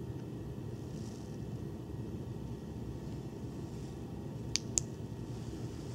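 Two short sharp clicks about a quarter second apart from an EagleTac D25C2 flashlight's tail-cap clicky switch being pressed, over a steady low room hum.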